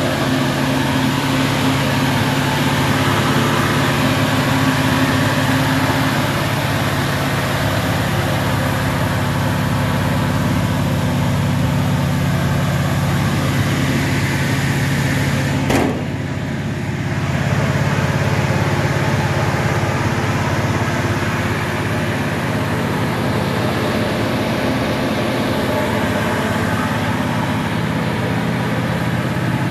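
A steady mechanical hum, with a single sharp click about sixteen seconds in and a brief dip in level just after it.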